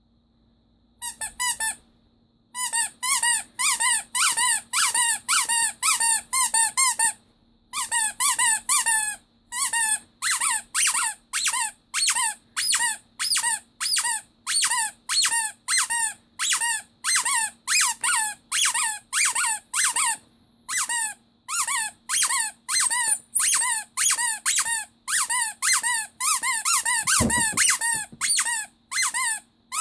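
Rubber Pinocchio squeaky toy by Ledraplastic, squeezed over and over: a string of high, wavering squeaks at about two a second, with a few short pauses.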